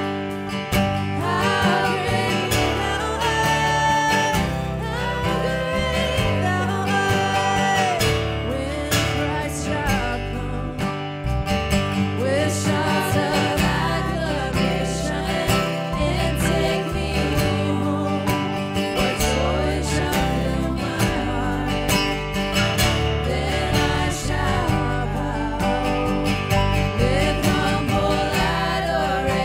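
Live worship music: a guitar-led band playing a song with singing.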